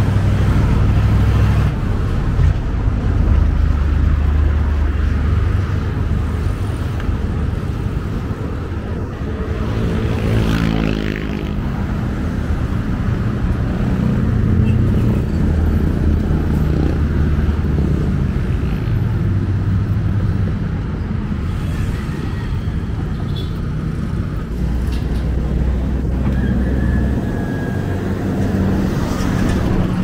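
Street traffic: vehicle engines running with a steady low rumble, one engine revving up with a rising note about ten seconds in.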